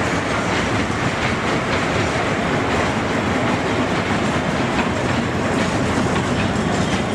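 A small kiddie-train ride running on its circular track, its cars giving off a steady rattling clatter.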